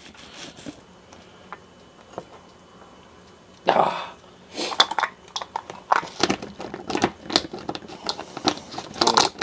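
Faint knife strokes through an onion, then from about halfway a run of irregular sharp clacks and knocks as a glass-jar plunger onion chopper is pressed down again and again.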